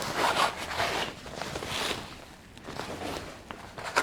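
Fabric rustling and scraping in uneven bursts as outdoor-rated costume pants are pulled down over an animatronic's foam leg padding, softer after about two seconds.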